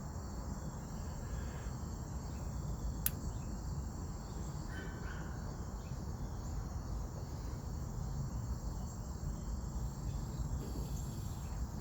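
Steady high-pitched insect chirring over a low background rumble, with a single sharp click about three seconds in.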